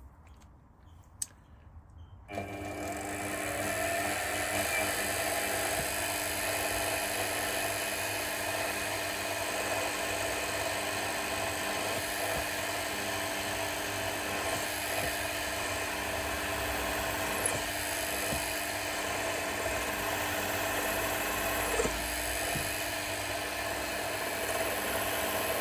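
Milling machine spindle starts up about two seconds in and runs steadily, a hum with several constant whining tones, while a centre drill spots the hole for the quarter-inch shaft in the engine base.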